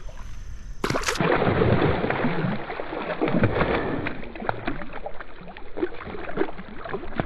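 Water close to the microphone, splashing and gurgling with many small irregular crackles, beginning about a second in.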